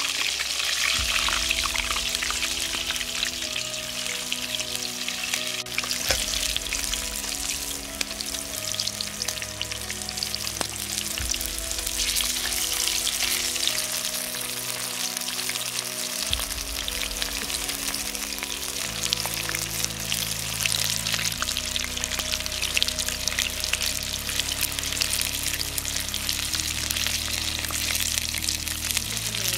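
Coated chicken pieces deep-frying in a pan of hot oil, a steady dense sizzling and crackling. Soft background music of held chords that change every couple of seconds plays underneath.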